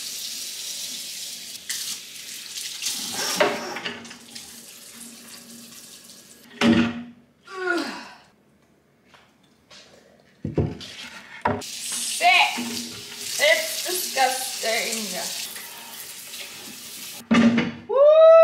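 Kitchen faucet water running into the sink and splashing over a glass fridge shelf as it is rinsed, in two stretches with a pause and a couple of knocks between them. Near the end comes a loud, drawn-out vocal exclamation.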